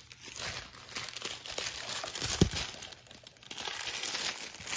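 Small plastic bags of diamond painting drills crinkling as they are handled, with scattered light clicks and one sharper click a little past halfway.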